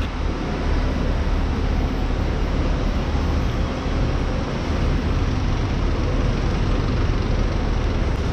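A double-decker coach's diesel engine running with a steady low rumble.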